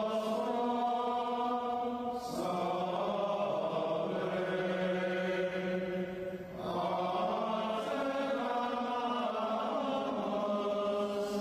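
Voices chanting in unison on long held notes, moving to a new pitch about two seconds in and again a little past halfway.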